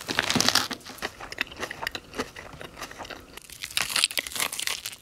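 Crispy KFC fried chicken crunching and crackling in quick bursts, loudest at the start and again about four seconds in. The food crunches stand in for film sound effects.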